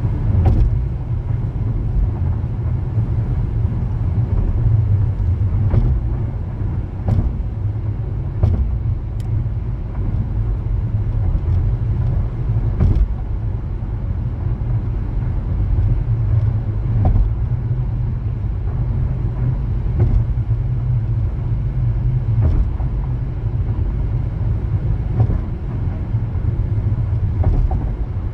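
Car driving on city roads: a steady low rumble of road and engine noise, with scattered short knocks.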